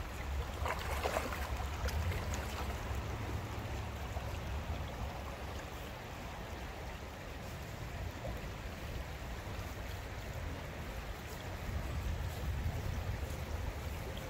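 Shallow river water running over a stony bed, a steady rushing and trickling, with a low rumble underneath.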